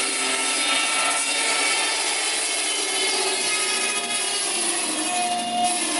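Large circular saw blade cutting through a log, a steady loud cut with several high whining tones ringing from the blade. One whine stands out more strongly near the end.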